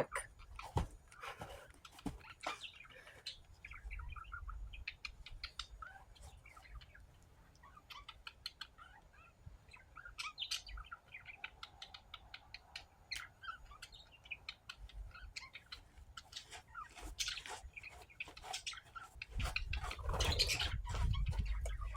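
Small birds chirping and calling in short, scattered notes, over a low rumble that grows louder near the end.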